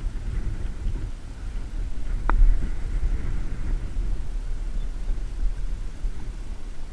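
Wind buffeting the microphone: an uneven low rumble that swells and eases, with one brief click a little over two seconds in.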